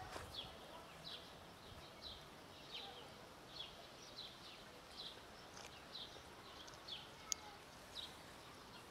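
A bird's short, falling chirps, faint and repeated about once or twice a second, with a single sharp click about seven seconds in.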